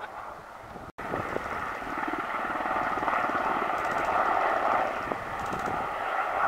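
Westland Sea King Mk41 twin-turbine helicopter flying past, its rotor beating fast and evenly over a steady turbine whine. The sound cuts out for an instant about a second in and comes back louder.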